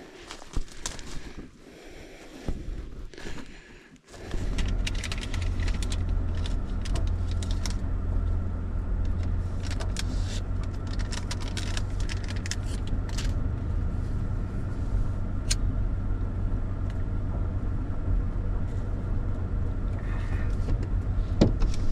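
A car's engine idling with the air conditioning running, heard from inside the cabin as a steady low rumble, with small clicks and rustles on top. It cuts in suddenly about four seconds in, after a few seconds of quieter sound with scattered clicks.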